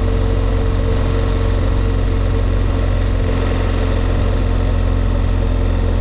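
BMW R 1200 GS motorcycle's boxer-twin engine running at steady revs, with no change in pitch or level.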